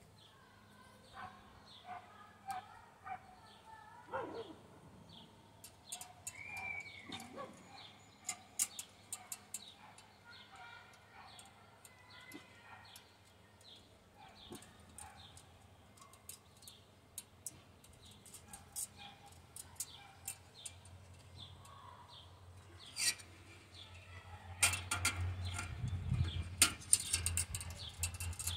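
Small metal clicks and clinks from camping-stove parts being handled and fitted together, scattered at first and coming thick and loud in the last few seconds. Birds chirp faintly in the background.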